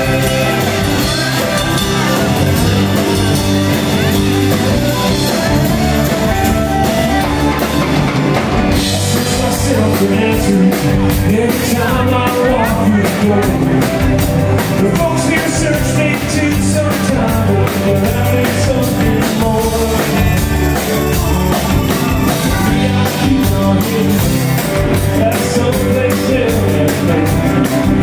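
Live rock band playing: electric guitars and bass over a drum kit. About eight and a half seconds in, the drummer picks up with busy cymbal strokes.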